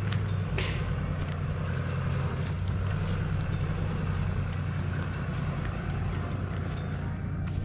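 Pickup truck engine running steadily at low revs as the 4WD crawls up a steep, rocky dirt track, with a few faint clicks.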